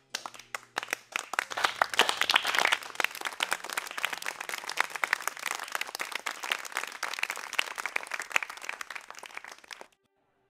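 Applause: hands clapping in a fast, dense clatter that is loudest a couple of seconds in and stops abruptly near the end.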